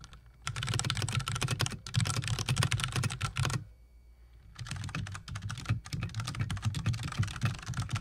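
Fast typing on a full-size Das Keyboard with Cherry MX Brown switches, then, after a pause of about a second, typing on a Filco Majestouch tenkeyless keyboard, also with Cherry MX Browns, which is slightly quieter. The two are played one after the other to compare how loud each is.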